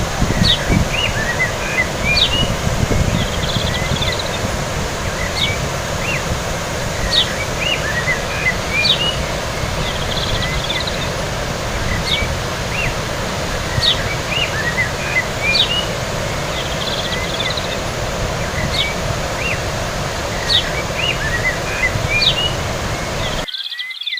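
A bird repeating a short phrase of quick chirps about every two seconds, over a steady low rumble of wind on the microphone. The sound cuts off suddenly near the end.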